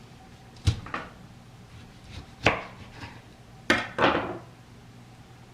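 Knife cutting a yellow dragon fruit on a cutting board: a few sharp knocks of the blade on the board, the last followed by a short slicing stroke.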